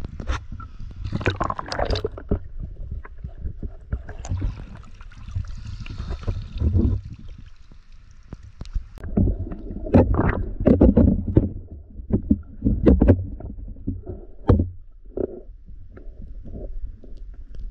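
River water sloshing, splashing and gurgling around a pole-mounted camera held at and below the surface, with a steady muffled underwater rumble. The loudest splashes come in a cluster of irregular bursts in the second half.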